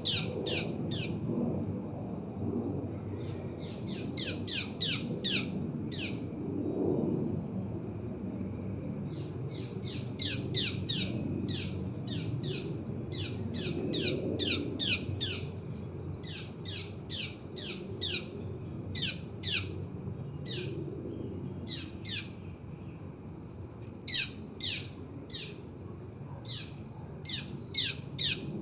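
A bird calling in runs of short, quick chirps that each drop sharply in pitch, over the steady low rumble of a distant aeroplane.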